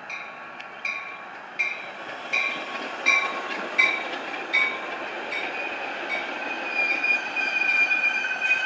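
Metra bilevel commuter cars rolling past close by, their wheels clicking over rail joints about every three-quarters of a second. From about six seconds in, a steady high squeal from the wheels and brakes grows louder as the train slows to stop at the station.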